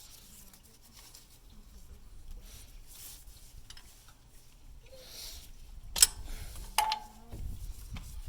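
Metal tools and engine parts clinking and rubbing while the belt tensioner is worked off the engine. Two sharp metallic clinks come near the end, the second ringing briefly, followed by low handling noise.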